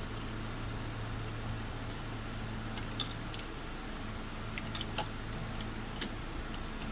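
A few light clicks and rattles of small parts handled in a car's engine bay, over a steady low hum.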